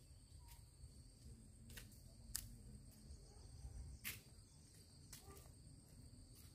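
Near-silent rural ambience: faint, steady high-pitched insect chirring over a low rumble, with a few faint clicks.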